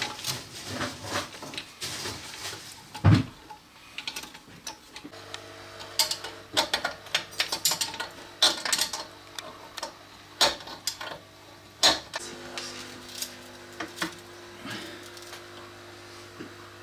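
Irregular metallic clinks and knocks of hand tools as a spanner is fitted and worked on a moped's exhaust fixings. A steady low hum sets in about five seconds in.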